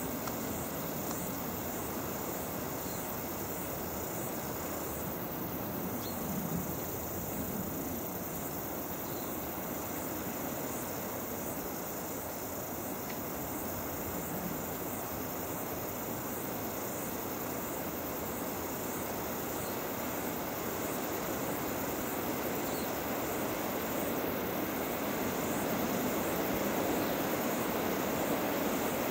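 Steady outdoor background noise like a distant traffic hum, with a faint, regular, high-pitched insect chirping over it; the hum grows a little louder near the end.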